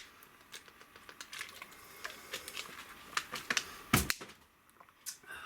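Scattered light clicks and taps of things being handled, with one louder knock about four seconds in.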